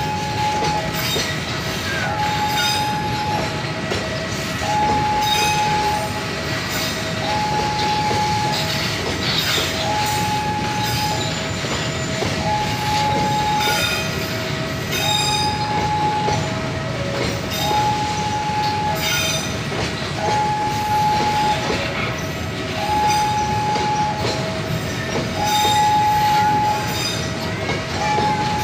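Loaded freight wagons rolling slowly past with a low rumble and scattered clicks from the wheels on the rails. Over it, a two-tone electronic warning signal sounds again and again, a higher note then a lower one, about every two seconds.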